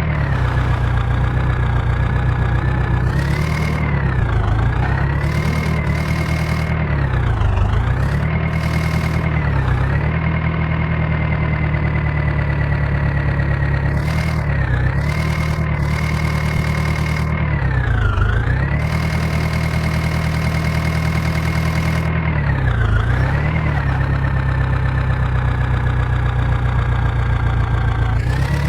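Diesel engine of a tractor or backhoe loader running steadily. Its pitch dips briefly and recovers several times as it takes load, typical of soil-loading work.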